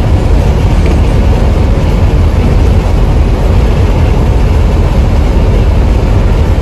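Steady low rumble of a bus travelling at highway speed, heard from inside the cabin at the front: engine and road noise with no change in pace.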